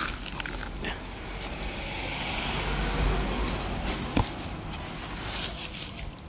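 A car passing along the street, its engine and tyre noise swelling to a peak about three seconds in and fading away, with a few short sharp clicks.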